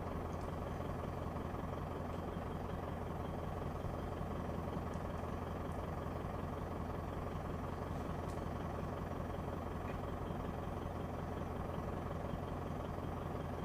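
Vehicle engine idling with a steady low hum.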